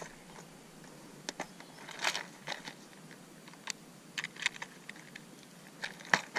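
Clear plastic tackle box of hard fishing lures being handled and opened: irregular light clicks and rattles of plastic on plastic, with a cluster about two seconds in and more near the end.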